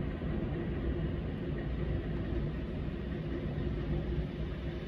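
Steady outdoor city ambience in the rain: a continuous low rumble with a hiss on top and no distinct events.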